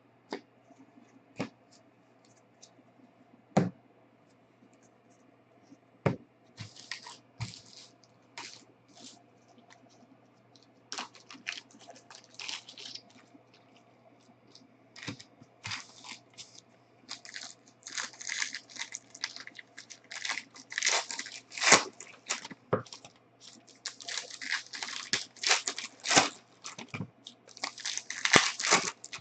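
Trading-card pack wrappers being handled and torn open: a few scattered taps and clicks at first, then dense crinkling and tearing of the wrapping through the second half.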